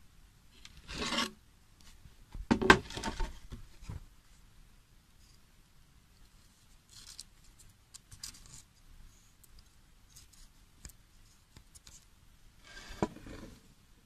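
Handling noise: bursts of rubbing and scraping, about a second in, again from about two and a half to four seconds in with one sharp knock among them, and again near the end, with faint scratches between.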